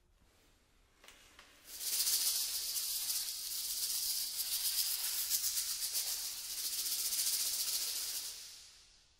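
A dry, high rattle that starts about two seconds in, holds steady for several seconds and fades out near the end.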